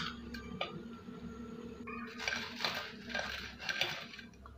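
Faint clinks and soft scrapes of dishware being handled on a ceramic plate, with a few scraping or rustling sounds about two to four seconds in, over a faint low hum.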